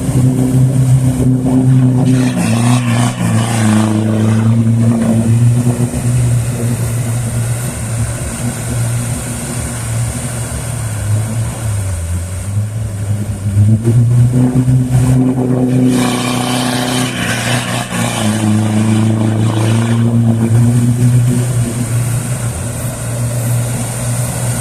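Off-road 4x4 vehicle engine revving under load, the revs repeatedly climbing and dropping back, loudest near the start and again about two-thirds of the way through.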